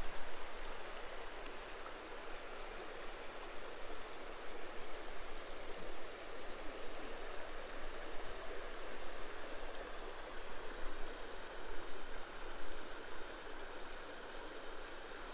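The River Barle running shallow and fast over a stony bed: a steady rush of water over the riffles.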